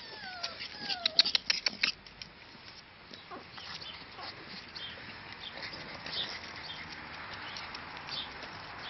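Young puppies giving two short falling whines in the first two seconds, among sharp clicks and taps. After that it settles to softer scattered taps and patter.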